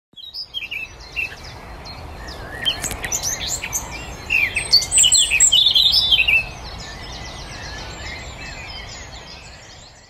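Several songbirds singing and calling together, a busy mix of chirps and trills that is loudest around the middle and fades out at the end, over a steady low background noise.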